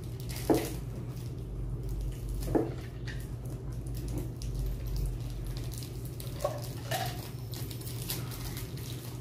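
Plastic wrapper of a Whatchamacallit candy bar crinkling and tearing as it is unwrapped by hand, with louder crackles about half a second and two and a half seconds in. A steady low hum runs underneath.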